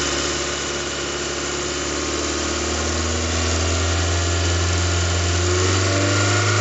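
Toyota 3S-GTE turbocharged four-cylinder engine idling steadily, at a moment when its intermittent light rattle has dropped out. The idle speed rises a little about five and a half seconds in.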